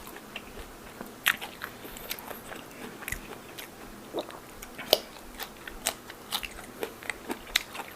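A person chewing a big mouthful of beef tripe and sticky rice close to the microphone: irregular wet smacks and sharp clicks of mouth and teeth.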